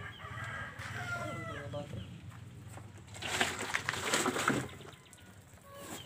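A chicken gives a drawn-out call over the first two seconds. About three seconds in comes a loud stretch of crunching, like feet stepping on gravel.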